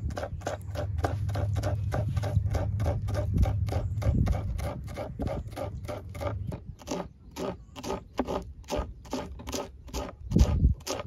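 Knife chopping green chillies on a plastic cutting board: steady, even knocks about three a second. A low rumble runs under the first half, and a heavier thump comes near the end.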